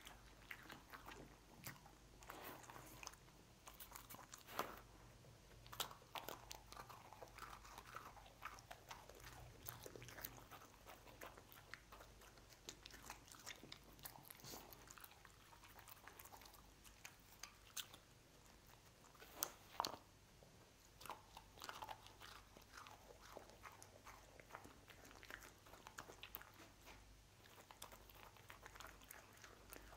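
A dog licking and crunching up cookie crumbs: faint, irregular small crunches and wet licks, with a few louder crunches.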